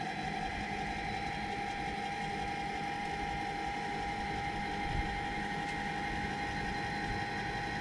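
Powered engine-hatch lift motor on a Tiara 3100 Open running steadily as it raises the cockpit engine hatch, a constant whine that holds the same pitch throughout.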